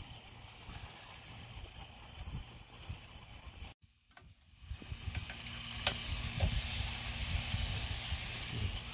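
Shrimp sizzling over hot charcoal on a Weber Go-Anywhere grill as sauce is brushed on. The sizzle breaks off abruptly about four seconds in, comes back louder a second later, and a few sharp clicks come through it near the end.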